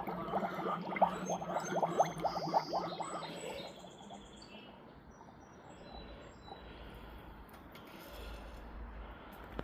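Hot forged steel blade, a knife made from a wrench, quenched in a quench tank: a rapid crackling sizzle with thin high squeals for the first three to four seconds, dying away to a faint hiss as the steel cools.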